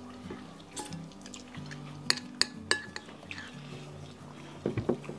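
Metal spoons clinking against ceramic bowls, with three sharp clinks about two seconds in and a short cluster of knocks near the end, over background music.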